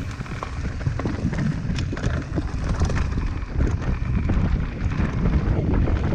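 Mountain bike riding fast over a rough dirt trail: wind buffets the microphone over a steady rumble of tyres on dirt, with frequent knocks and rattles from the bike over stones and bumps.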